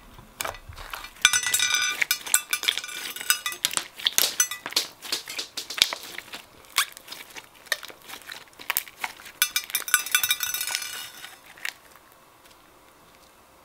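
Slime with small candy bits mixed in being kneaded and squeezed by hand: sticky clicks and crackling pops, in two dense spells of crackling with scattered single clicks between. It goes quiet near the end.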